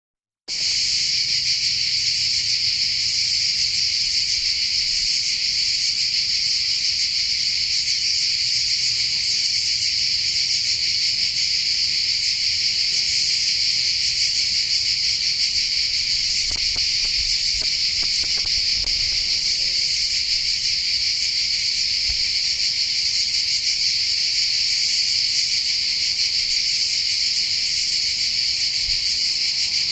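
Dense chorus of insects: a continuous high, shrill buzz that holds steady and starts about half a second in.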